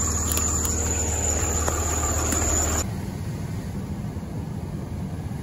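A vehicle engine idles with a steady hum and a thin high whine. About three seconds in, this cuts abruptly to the steady engine and road noise heard inside a moving vehicle's cab.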